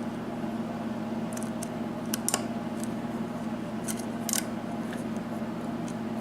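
Lock pick scraping and clicking on the pin stack of a 6-pin US Lock key-in-knob cylinder under light tension: small, scattered metallic clicks, the loudest about two seconds in and again around four seconds. It is single-pin picking, working at the hard-to-set number 1 pin. A steady low hum runs underneath.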